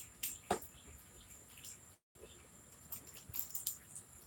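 Faint scattered rustles and taps of someone handling things out of view, with a clearer tap about half a second in, over a faint steady hiss. The sound cuts out completely for a moment at about two seconds.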